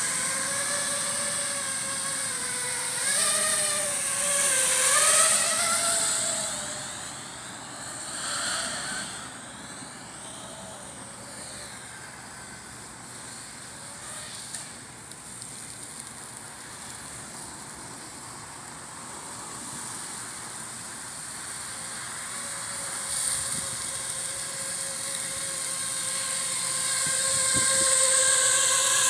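FPV quadcopter drone's motors whining, the pitch wavering up and down with the throttle for the first few seconds. The sound then fades as the drone moves farther off, and grows louder again near the end with a steadier pitch.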